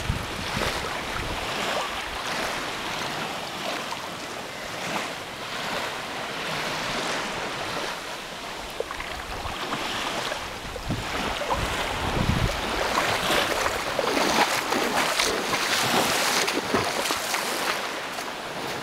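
Shallow sea water lapping and sloshing at the shoreline, with wind buffeting the microphone.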